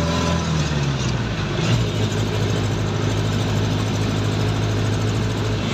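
Jeepney engine heard from inside the passenger cabin, its pitch dropping in the first second and then running steadily.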